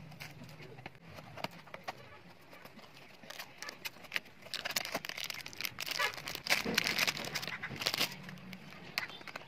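Plastic packaging crinkling and rustling as it is handled, with scattered clicks, thickest and loudest from about halfway in until near the end.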